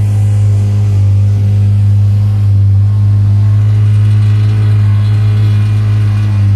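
Motorboat engine running steadily under way, a loud low drone that holds an even pitch.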